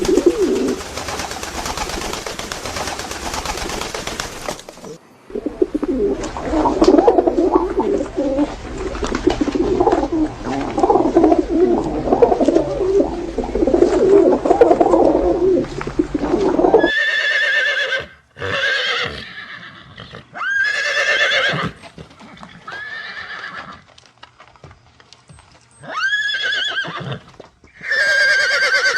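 A run of animal sounds. A few seconds of hiss come first, then a long stretch of low, busy calling, then from about two-thirds of the way in a series of five or six short, high calls about a second long each.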